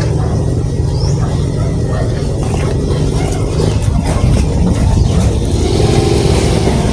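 Motor vehicle engine running close by, a steady low drone that gives way after about two and a half seconds to rougher road and traffic rumble.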